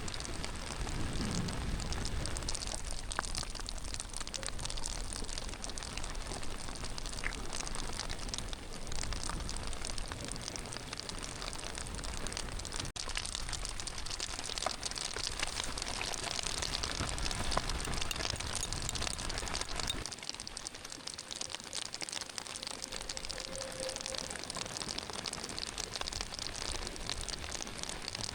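Steady rain falling, an even patter throughout. A low rumble underneath it drops away about twenty seconds in.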